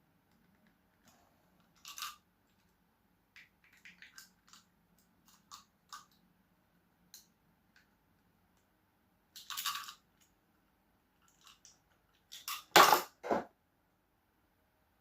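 Hands working with cables and tools: scattered small clicks, clinks and rustles, with a louder knock about three-quarters of the way through.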